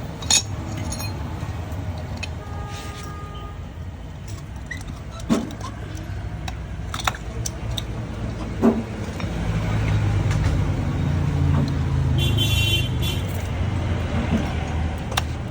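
A steady low engine rumble that swells louder for a few seconds past the middle, with a handful of sharp metallic clicks spread through it.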